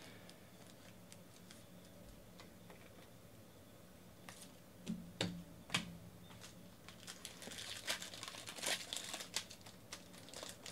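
Foil trading-card pack wrapper crinkling as it is handled, starting partway in, after a few light clicks and taps. The first few seconds are nearly silent.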